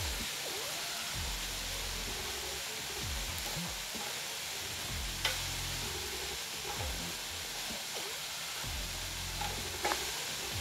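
Spatula stirring and scraping semolina as it roasts in ghee in a kadhai, over a steady frying sizzle. Two sharp clicks of the spatula against the pan, about five seconds in and near the end.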